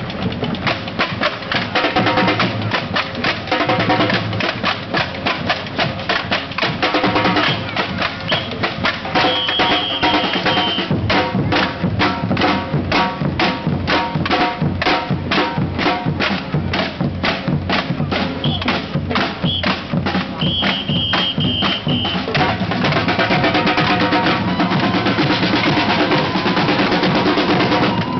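Drum-heavy music: a fast, steady drumbeat with snare and bass drum, and a few short high held notes over it.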